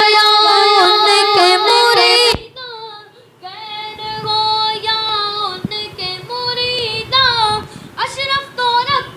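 Boys singing an Urdu devotional song (manqabat) into microphones: a loud, long-held, ornamented note that breaks off sharply about two seconds in, then quieter sung phrases.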